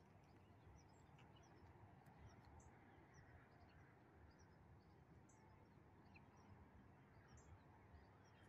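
Near silence: faint background with scattered faint high chirps.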